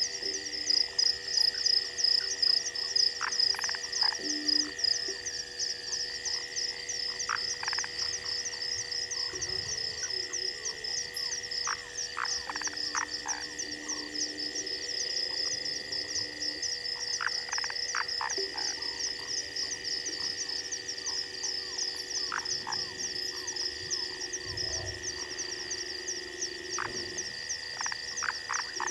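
Frog chorus at night: a dense, fast stream of high-pitched calls, with a steady lower tone beneath and scattered short calls.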